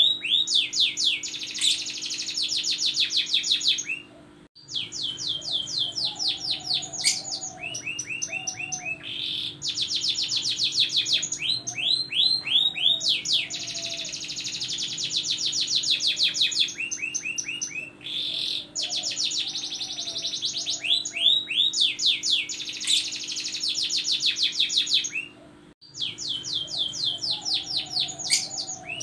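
Domestic canary singing long rolling trills of fast repeated notes that change speed and pitch from phrase to phrase, breaking off briefly twice. A faint steady low hum runs underneath.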